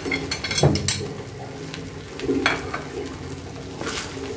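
Cooked rice tipped into a hot wok of frying vegetables, landing with a soft thud about a second in, then a spatula scraping and stirring through it over a low sizzle.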